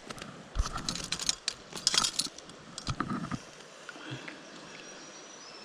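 A quick run of clicks, rattles and rustles from handling a trout in a rubber-mesh landing net while it is unhooked. It thins out after about three and a half seconds to a faint steady hiss.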